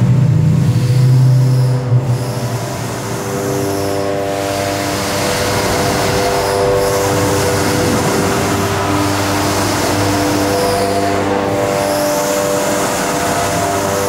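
Hydraulic drive of a 900 kW wave generator running as it works its wave paddle: a steady mechanical hum with several whining tones that come and go every few seconds. The low hum is louder for the first two seconds.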